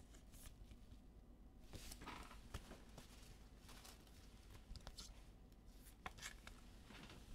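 Faint rustling and scattered light clicks of trading cards being handled and slid through by hand.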